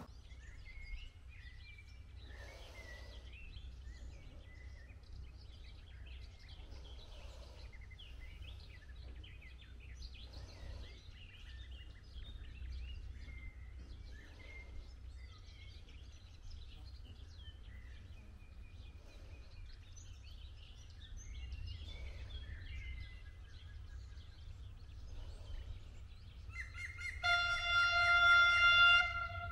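Songbirds chirping and singing over a steady low outdoor rumble. Near the end a loud horn sounds one steady note for about two seconds, the horn of the approaching regional train.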